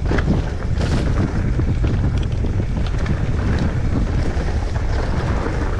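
Mountain bike rolling down a rocky dirt trail, with tyres on loose stones and the bike rattling in short clicks over a steady rumble of wind buffeting the microphone.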